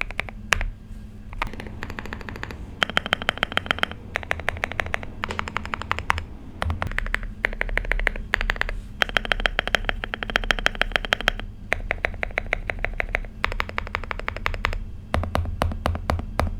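Typing on a Finalkey V65 mechanical keyboard with hand-lubed switches, a polycarbonate plate and foam dampening. Runs of rapid keystrokes come in bursts of a second or two, broken by short pauses.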